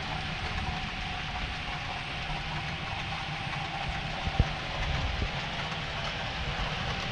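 HO-scale Athearn EMD GP9 model locomotive running under a Tsunami 2 sound decoder, its diesel engine sound playing steadily through the model's small speaker. A single sharp click comes a little over four seconds in.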